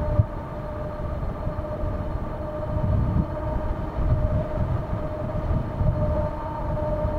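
Wind buffeting the microphone of a handlebar-mounted camera on an Ariel Rider Kepler e-bike riding at steady speed, with a steady whine from the bike's electric hub motor.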